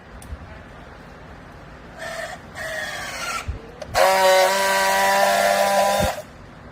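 Baler machine running: a mechanical whine that falls in pitch about two seconds in, then a loud steady whine for about two seconds that cuts off suddenly.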